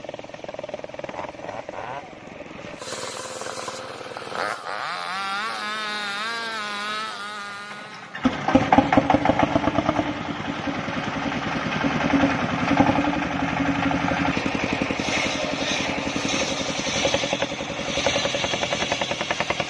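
Engine of a homemade circular sawmill running hard, with a fast, rapid beat. Before it, a wavering, warbling tone cuts off abruptly about eight seconds in.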